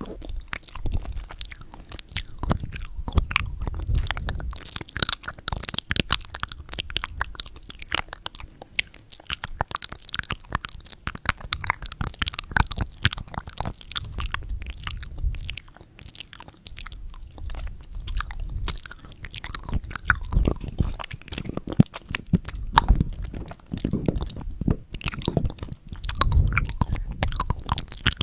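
Close-miked chewing of a soft squeezed-out grape jelly candy: a dense run of wet mouth clicks and crunchy snaps with low thuds, in waves.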